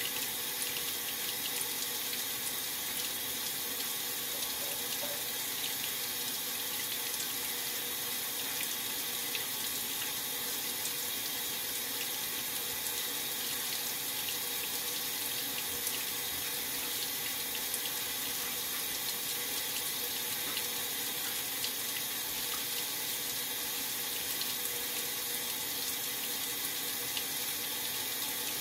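Maytag Centennial top-load washer filling its tub with water for the rinse: a steady, unbroken rush of incoming water.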